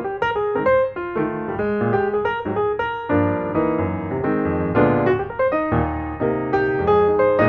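Background music: a piano melody with notes played in quick succession over lower chords.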